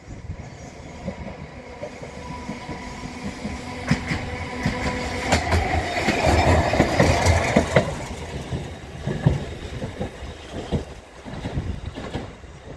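A rail vehicle passing close by, its wheels clacking over rail joints, growing louder to a peak about six to eight seconds in and then easing off, with a steady whine in the first few seconds.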